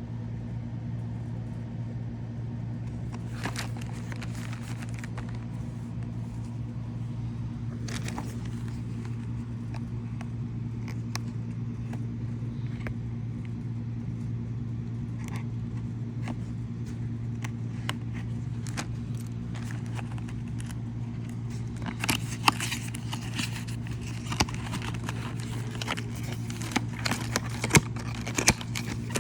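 A steady low hum underneath scattered clicks and crinkles from packaging and a cable being handled, the handling getting busier and louder about three quarters of the way through.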